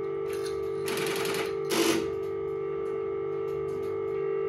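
Strowger group selector of a UAX13 telephone exchange stepping as a digit is dialled: a quick run of evenly spaced relay clicks lasting about half a second, then a heavier clunk just before two seconds in as the selector is seized. A steady tone sounds throughout.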